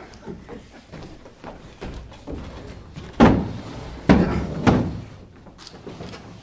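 Three loud thumps a little over three seconds in, each under a second apart, over low room noise.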